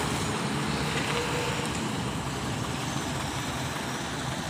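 Large truck's diesel engine running steadily under the noise of a car passing on the road, the sound easing off a little.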